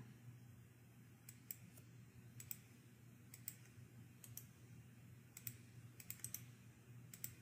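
Faint, scattered clicks of a computer mouse, a dozen or so irregular clicks with some in quick pairs, over a low steady hum.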